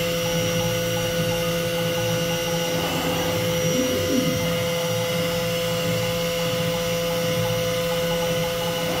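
Home-built four-axis CNC router running, with a steady whine from its spindle and dust extraction. Brief rising-and-falling motor tones come about three to four seconds in as the head tilts.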